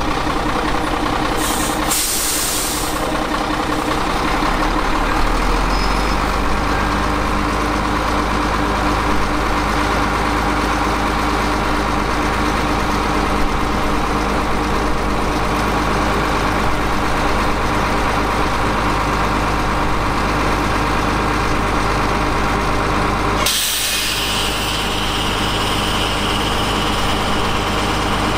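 Ten-wheel dump truck's diesel engine running steadily. A short burst of air hissing comes near the start, like an air-brake release, and another air hiss begins about 23 seconds in and carries on.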